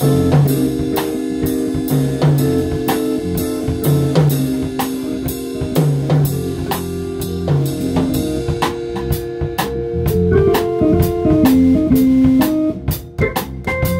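A band playing an instrumental groove: a drum kit keeps a steady beat under sustained chords and a bass line. The beat breaks briefly near the end.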